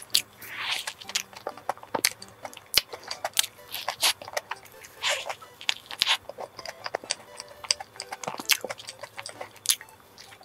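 Close-up eating sounds: biting into and chewing a Hong Kong egg waffle topped with choux cream, with many sharp crunchy clicks and wet mouth sounds.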